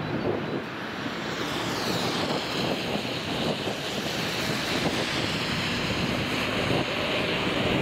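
Steady road traffic noise: the rush of tyres and engines of cars on the road, with a faint falling whine high up about two seconds in.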